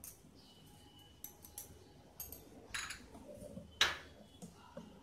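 A few scattered clinks and knocks of a steel spoon and glass bowls being handled on a kitchen counter. The loudest knock comes about three-quarters of the way through, another a second earlier.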